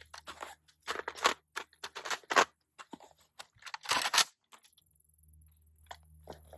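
AK-pattern rifle being reloaded by hand: the magazine pulled, re-indexed and seated and the action charged, heard as a string of short clacks and rattles over about three seconds, the last one the loudest.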